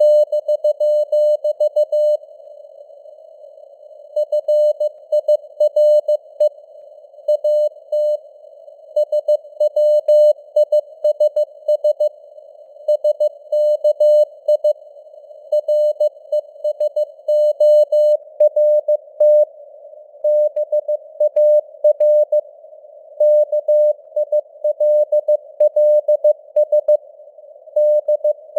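Morse code (CW) sent at 15 words per minute: a single steady mid-pitched tone keyed on and off in dots and dashes, spelling out news headlines. Between the characters there is a soft hiss of simulated radio noise.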